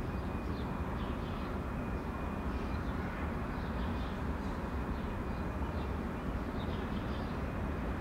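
Steady outdoor background rumble with small birds chirping on and off throughout.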